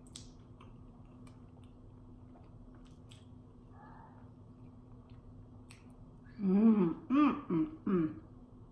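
Faint clicks of chewing and mouth sounds over a steady low hum, then about six seconds in a person's voice in four short bursts, bending up and down in pitch, without words.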